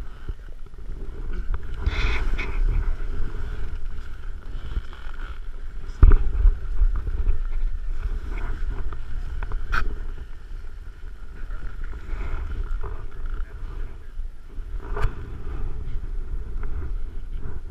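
Low wind rumble buffeting a body-worn camera's microphone, broken by a few sharp knocks and clicks of gear being handled close to it; the loudest knock comes about six seconds in.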